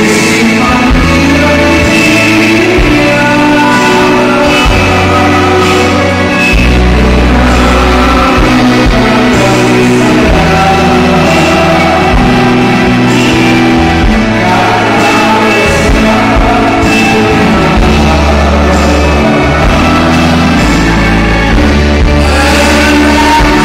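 Live band music with male vocals, played through a hall's sound system and heard from the audience seats: steady bass notes changing every second or two under the band and singing.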